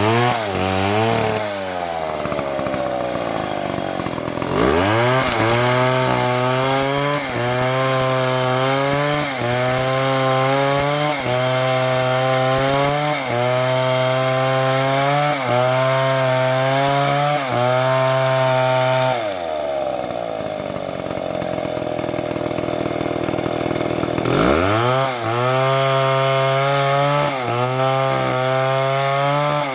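STIHL chainsaw cutting wood at full throttle, its engine speed sagging and recovering every second or two as the chain bites. It drops back to idle twice, briefly near the start and for a few seconds past the middle, then revs up sharply to cut again.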